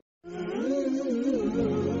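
Music with a wavering sung melody over a steady low drone. The sound drops out completely for a moment at the very start.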